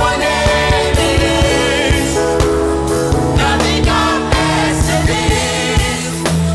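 Live gospel worship music: a band playing sustained chords over a beat, with singing voices.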